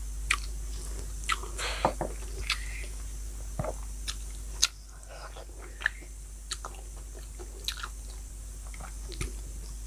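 A person chewing and biting food, with irregular crisp crunches and clicks.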